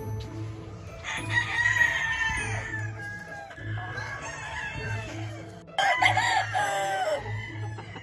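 Roosters crowing twice: a crow from about one to three seconds in, and a louder one about six seconds in. Background music with a steady beat runs underneath.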